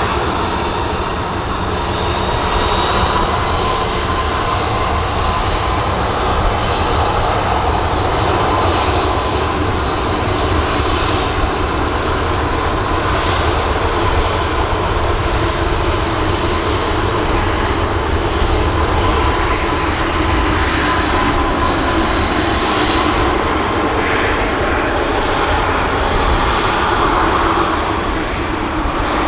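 Airbus A320's twin jet engines running at takeoff power: a loud, steady jet noise with high, steady whining tones over it.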